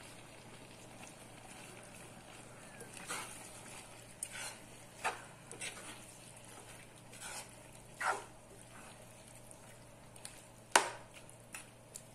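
Metal spatula stirring chicken and chopped spinach curry in a coated frying pan: irregular scrapes and knocks against the pan, starting about three seconds in, the loudest a sharp clank near the end, over a faint steady cooking hiss.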